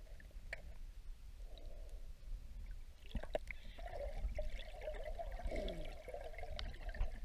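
Seawater heard muffled from a submerged action camera: a low rumble with faint gurgling, trickling water and a few small clicks.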